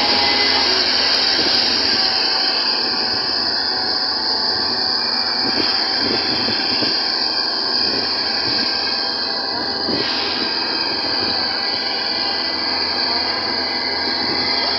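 Steady ride noise from inside an open-backed jeep driving along a hill road: engine and road rumble with wind, occasional knocks and rattles, and a steady high-pitched hiss.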